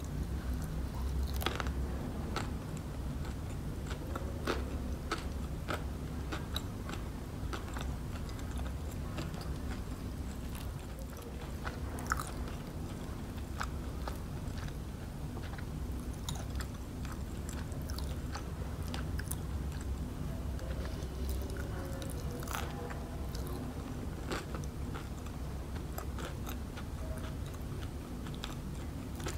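Close-up eating sounds of KFC crispy fried chicken: bites and chewing, with irregular crunches from the breaded coating. A steady low hum runs underneath.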